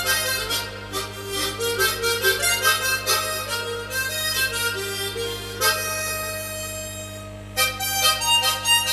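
Unaccompanied solo harmonica playing a quick melody, with tongue-made chord accompaniment and octave harmonies under the tune. About six seconds in the notes give way to one long held chord, and the quick playing starts again near the end.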